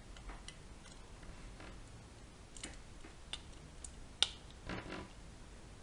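Scattered small clicks and light knocks of an old Western Electric 7002B rotary dial's metal parts being handled and fitted back together, with one sharper click about four seconds in and a short scrape just after.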